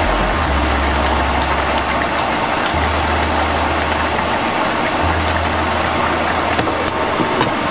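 Beetroot curry at a rolling boil in an open pot: a steady bubbling with small scattered pops.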